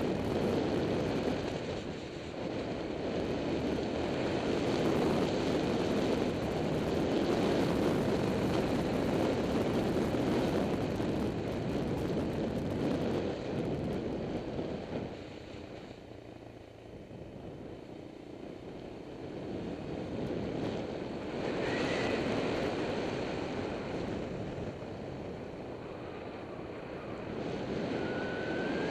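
Motorbike riding along a winding road: wind rushing over the action-camera microphone with the engine drone beneath, easing off for a few seconds midway and building again.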